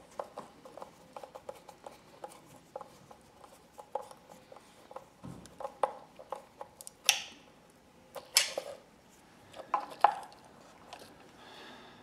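Screwdriver working the terminal screws of a plastic one-way light switch: a run of small metallic clicks and scrapes, with a few louder clicks about seven, eight and a half and ten seconds in.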